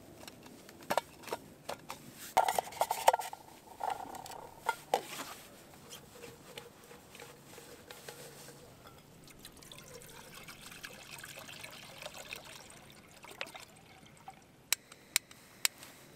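Liquid poured from a thermos, an even trickling hiss for several seconds around the middle. It follows a run of clicks and knocks from the container and lid being handled, and there are a few sharp clicks near the end.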